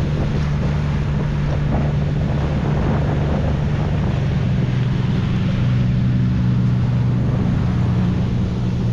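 A boat engine's steady low drone, with water rushing along the hull and wind buffeting the microphone.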